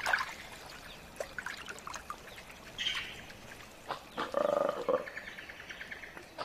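Wet, crackling chewing and rustling as a mangabey monkey munches swamp weed. Then, about four seconds in, comes a loud, guttural, pulsing call from a black-and-white colobus monkey.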